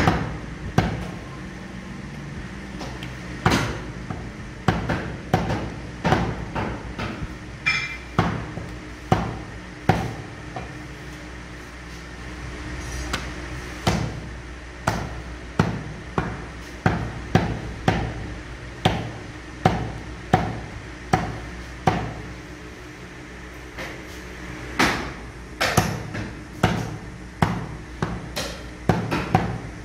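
Meat cleaver chopping meat on a wooden butcher's block: repeated sharp chops in quick runs, with a short lull about halfway through.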